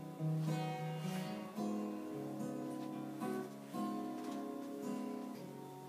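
Solo acoustic guitar playing a strummed chord intro, with a fresh strum and chord change about every second or so.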